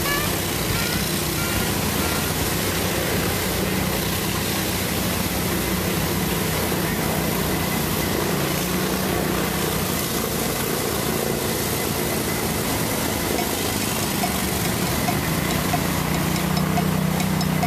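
Amphibious 6x6 ATV engines running at low speed, a steady drone that grows louder near the end as one comes closer.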